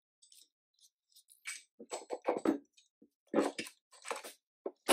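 Steel gears, shafts and shift forks of a dual-clutch transmission clinking and knocking as they are worked into place by hand, in short irregular taps and clunks that start about a second and a half in.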